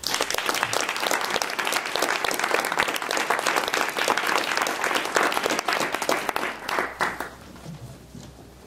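Audience applauding, starting at once and holding steady for about seven seconds, then dying away.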